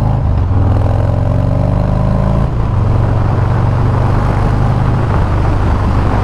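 2018 Harley-Davidson Sport Glide's Milwaukee-Eight V-twin running on the road through a Bassani 2-into-1 exhaust, with wind and road noise. The engine pitch rises over the first two seconds or so under throttle, then drops back and holds steady.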